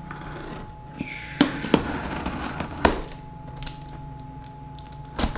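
Box cutter slicing through packing tape on a cardboard box: a scraping, tearing slit with a few sharp taps and crackles of the cardboard.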